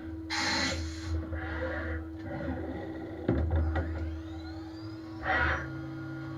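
Okuma VH-40 five-axis machining centre running: a steady hum under short hissing bursts, then a sharp clunk about three seconds in followed by a rising whine. Near the end another burst comes, and a lower steady hum sets in.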